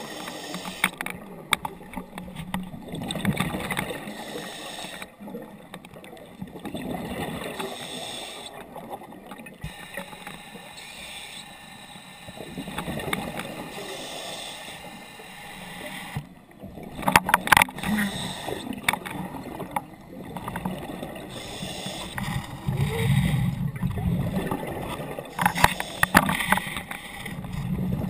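Underwater scuba breathing: a diver's regulator lets out exhaled bubbles in low, gurgling surges every few seconds. There are two clusters of sharp clicks in the second half.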